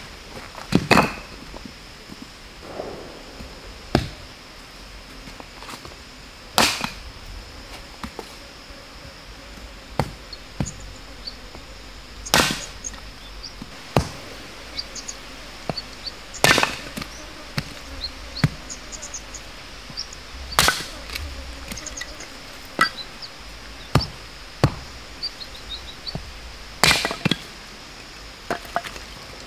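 Hatchet blade chopping and splitting fresh bamboo shoots on the ground: about a dozen sharp, separate chops at irregular intervals. A steady high insect drone runs underneath.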